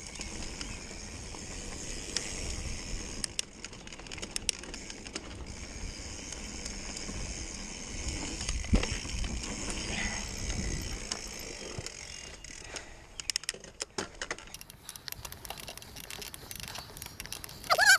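Mountain bike riding down a dirt singletrack: tyres rolling over packed dirt and the bike's parts rattling, with a run of sharp knocks and clatters over rougher ground in the last few seconds.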